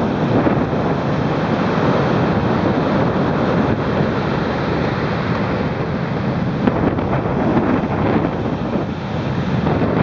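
Heavy storm surf breaking and churning on a rocky shore, a continuous loud rushing roar of crashing water, with wind buffeting the microphone.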